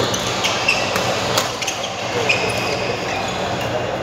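Badminton rackets striking a shuttlecock in a doubles rally: sharp cracks roughly a second apart. Sneakers squeak briefly on the court floor over the steady din of a busy hall.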